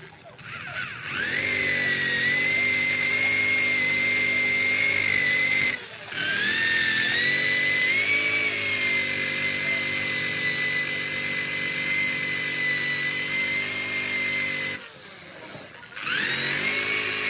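Power tool spinning a rubber decal eraser wheel against a car's painted window pillar, rubbing off decal. A steady high whine that rises in pitch each time the tool spins up. It runs three times, with short stops about six seconds in and near the end.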